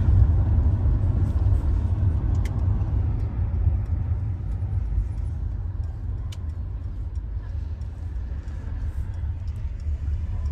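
Steady low rumble of road vehicle noise, with a few faint clicks.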